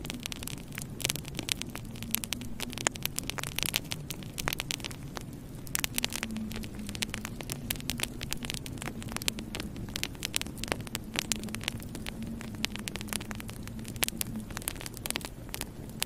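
Wood fire burning in a fireplace, with irregular sharp crackles and pops from the logs over a steady low hum.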